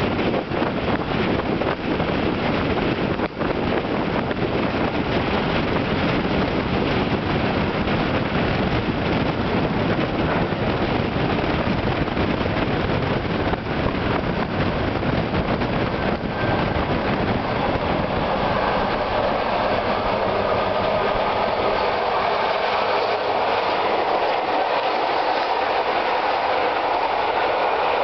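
Running noise of an Intercity train at speed, heard from a coach window: wheels rumbling on the rails with scattered clicks over the joints, and rushing air. From about two-thirds of the way through, the low rumble eases and a higher hum comes up as a Hamburg S-Bahn class 474 electric train draws alongside on the parallel track.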